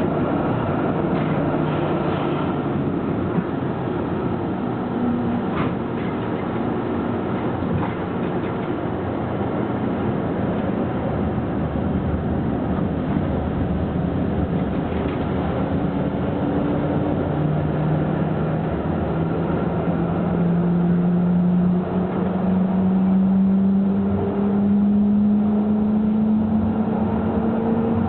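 Tram in motion, heard on board: steady running and rolling noise, with the traction motor's whine rising in pitch from about halfway through as the tram picks up speed.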